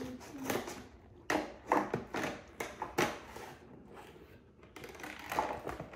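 Cardboard box being pulled open by hand: a run of sharp cardboard cracks and rips, loudest in the first half, with a last crack near the end.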